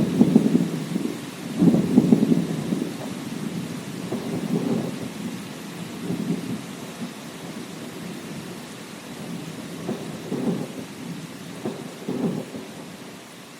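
Thunder rumbling in a series of rolls over steady rain, loudest near the start and about two seconds in, then in weaker swells.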